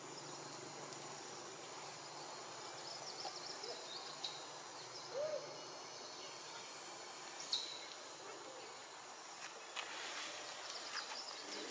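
Forest ambience with a steady high-pitched drone, scattered short chirps and squeaks, and a single short hooting call about five seconds in.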